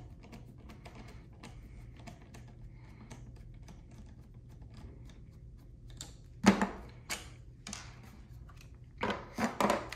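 Phillips screwdriver backing out the screws of a shotgun's factory butt pad: a run of faint small clicks and creaks. About six and a half seconds in and again near the end come a few sharp knocks and clatters as the screwdriver and parts are set down on the workbench.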